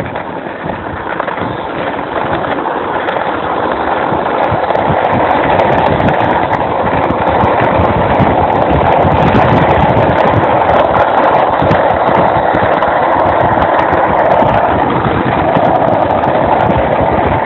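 Loud rushing wind and road noise from being towed along a street at speed, swelling over the first several seconds as speed builds and then holding steady.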